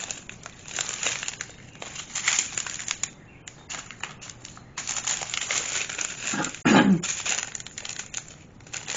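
Strips of small plastic bags of diamond-painting drills being handled and turned over, crinkling in irregular bursts. A brief vocal sound comes about two-thirds of the way through.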